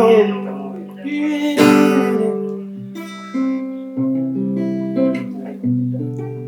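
Acoustic guitar playing chords and picked notes as song accompaniment, with a short sung phrase about two seconds in.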